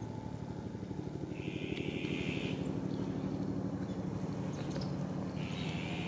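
An engine running steadily with a fast low pulsing, under two harsh, screechy sounds about a second long each, one about a second and a half in and one near the end.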